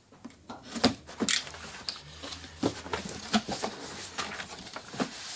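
Cardboard shipping box being opened by hand: flaps pulled back and the packing inside handled, giving scattered knocks and rustles.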